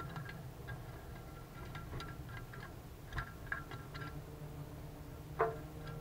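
European starling moving around inside a steel wood-stove firebox: scattered light ticks and taps of its feet and beak on the metal, with one louder knock near the end.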